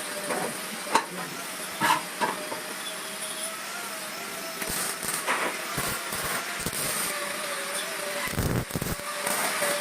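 Metal fabrication work on a steel table frame, most like welding: a steady hiss with a faint wavering whine, broken by several sharp metallic knocks and a low thud near the end.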